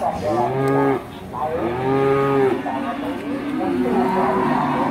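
Cattle mooing: two loud moos one after the other, then a third, longer and quieter moo that falls in pitch at its end.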